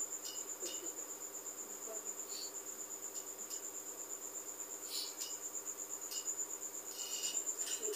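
A cricket trilling steadily at a high pitch, over a low steady hum.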